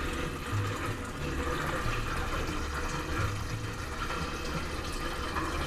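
Sink water draining down through the garbage disposal and its drain pipe, a steady rushing with a low rumble, heard from beneath the sink during a leak test of the reinstalled disposal.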